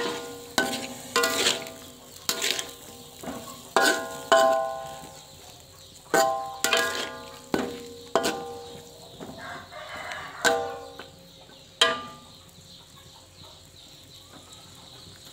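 Metal spatula knocking and scraping against a wok while stirring, about fifteen sharp clangs in the first twelve seconds, each leaving a short metallic ring, then quieter.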